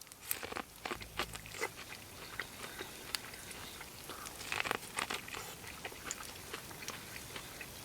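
A person biting into and chewing corn on the cob close to the microphone: a run of short crisp crunches and mouth clicks, thickest about halfway through.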